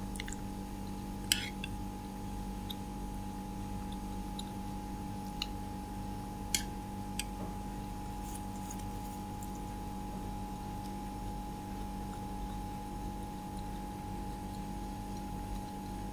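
Steady electrical hum, with a few short sharp clicks scattered through the first half.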